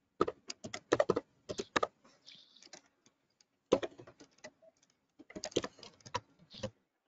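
Computer keyboard typing: three quick runs of keystrokes with short pauses between them.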